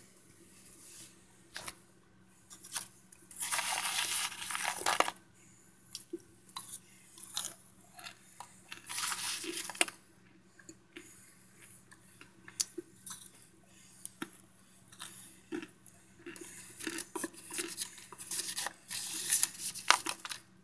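Close-up crunching and chewing of microwaved Argo cornstarch chunks, in irregular crackly bursts with sharp snaps. The longest burst comes about 3 to 5 seconds in, another around 9 seconds, and a dense run from about 16 to 20 seconds, with quieter gaps between.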